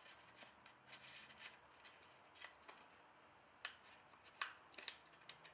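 Faint rustling and soft clicks of card and paper being handled as a small handmade paper mini book is opened. There are two sharper taps, about three and a half and four and a half seconds in.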